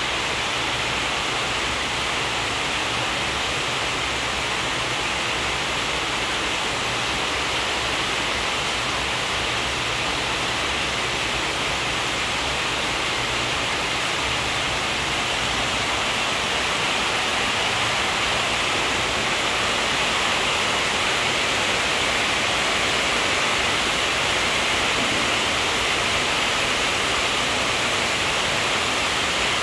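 A steady, even hiss of noise that does not change.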